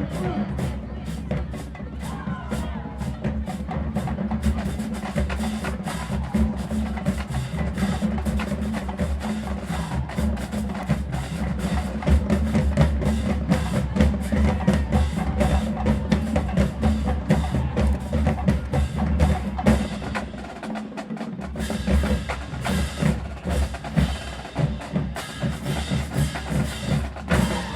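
Marching band drumline playing a fast, dense cadence: snare drums, bass drums and sharp stick or rim clicks. The low bass drums drop out for a moment about three quarters of the way through, then the hits carry on.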